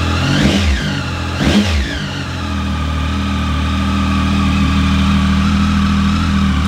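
Triumph Speed Triple 1050's inline three-cylinder engine, fitted with an Arrow aftermarket silencer, running shortly after a cold start. The throttle is blipped twice near the start, each rev rising and falling quickly, and the engine then settles into a steady idle.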